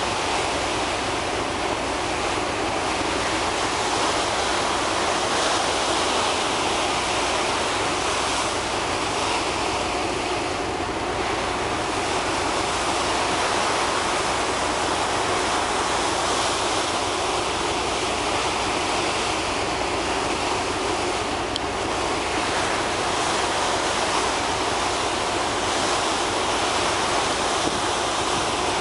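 Sea water rushing and churning steadily alongside a moving car ferry, with wind on the microphone and a faint steady hum underneath.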